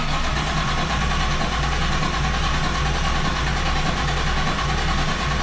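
Starter motor cranking a Nissan RB25DET turbocharged straight-six, a steady even churn that does not catch and run. The engine has fuel at the rail but will not fire, and missing spark is suspected.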